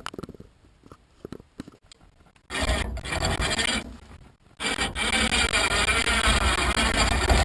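A few light clicks, then from about two and a half seconds in a loud, rough grinding and rasping with a heavy low rumble as the big pine log is hauled toward the pickup bed. It breaks off briefly around four seconds, then resumes.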